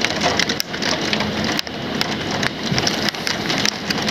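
Heavy rain pounding on an outside windowsill: a dense, steady patter of many sharp drop impacts.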